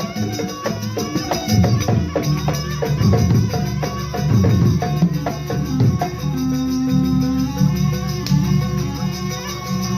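Live jaranan music from a Javanese percussion ensemble: drums and metal percussion playing a busy, driving rhythm over sustained pitched tones, with one held note a little past the middle.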